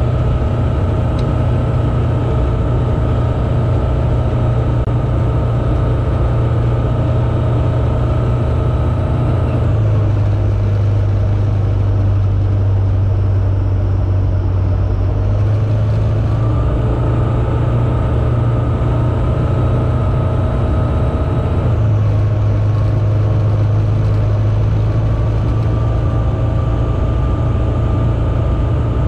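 Piston engine and propeller of a single-engine light aircraft heard from inside the cockpit, droning steadily on approach. Its note drops and rises a few times, about ten, sixteen and twenty-two seconds in, as power is adjusted.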